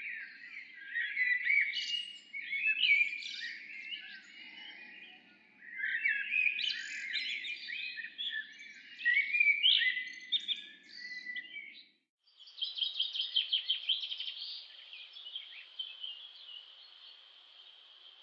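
Songbirds singing in varied, fast-changing phrases with two long bursts of song. About twelve seconds in the sound cuts off sharply and gives way to a high, rapid trill that settles into a steady high-pitched buzz.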